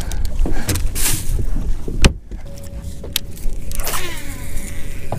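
A sharp click about two seconds in, then the steady whine of an electric trolling motor starts. About four seconds in, a cast: the baitcasting reel's spool whirrs, falling in pitch as the line pays out.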